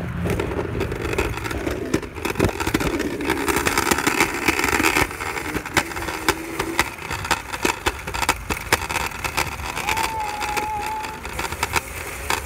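Scooter wheels rolling and rattling over pavement, with many sharp clicks and knocks on top of a steady rumbling noise.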